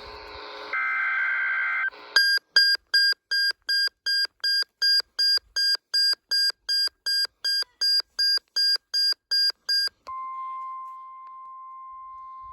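NOAA Weather Radio required weekly test signal. It opens with the end of the SAME digital header, bursts of warbling data tones, then a weather radio receiver's alarm beeps fast and buzzy, about three beeps a second, for about eight seconds. About ten seconds in, the beeping gives way to the steady single-pitch 1050 Hz weather alert tone.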